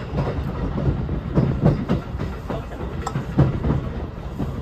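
Railway train rolling slowly, its wheels knocking irregularly over rail joints over a low rumble.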